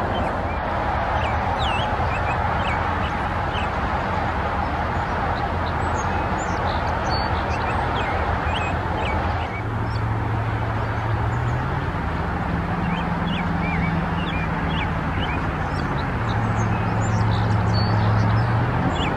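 Outdoor background of a steady low mechanical hum under a wash of noise, its pitch stepping up and down a few times in the second half, with small birds chirping throughout.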